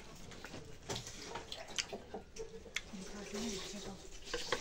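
Eating by hand: fingers mixing curry and rice on a steel plate, wet and sticky, with a few sharp clicks. A voice murmurs faintly in the background around the middle.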